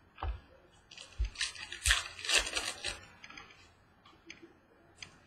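Trading cards being handled: a run of scratchy rustling and sliding about a second in, with light taps of the cards on the table, then a few faint clicks.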